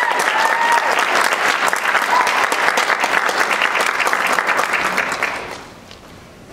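Audience applauding, with a couple of short cheering calls in the first second; the clapping dies away about five and a half seconds in.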